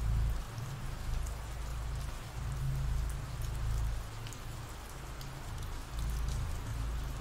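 Steady rain falling, with scattered patter of individual drops and a low rumble underneath.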